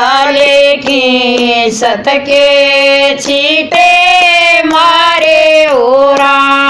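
Women singing a Haryanvi folk bhajan, holding long drawn-out notes that slide between pitches, with hand claps keeping the beat.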